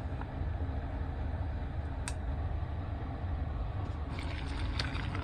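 A steady low hum runs throughout, with a single click about two seconds in. Near the end, hot soy-sauce tare is poured from a pan into a plastic colander, with a short run of splashing and trickling.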